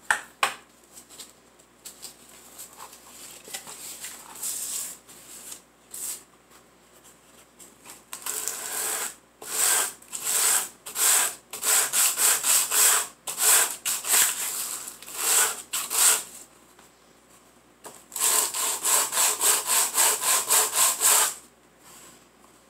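A small wooden dollhouse stove piece sanded by hand, rubbed back and forth on a flat sheet of sandpaper. After some light handling taps, the rasping strokes come about two a second, then a quicker run of about five a second near the end that stops abruptly.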